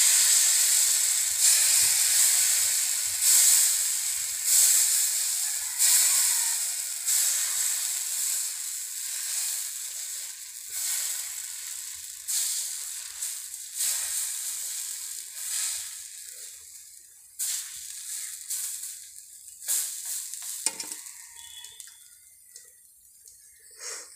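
Thin rice-flour batter sizzling on a hot oiled tawa as it is flung on by hand, each new splash of batter bringing a fresh surge of hissing. The sizzle dies down slowly in the last third as the lacy pancake sets.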